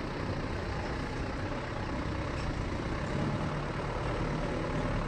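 Wind buffeting a body-worn action camera's microphone: a steady rushing noise with an uneven low rumble.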